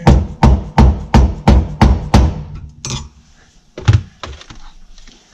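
Hammer striking a center punch against metal, about seven quick blows in the first two seconds and a single blow near four seconds, marking drill points for self-tapping screws.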